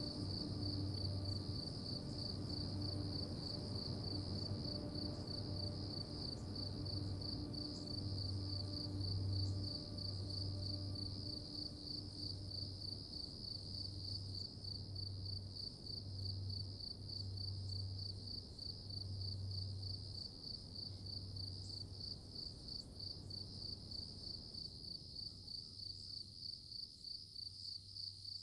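Insects chirping in a fast, steady high trill over a low hum that pulses on and off; a few faint steady tones fade out before halfway.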